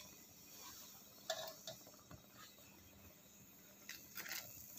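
Quiet room with a few faint clicks and light taps from handling, one about a second in and a short cluster near the end.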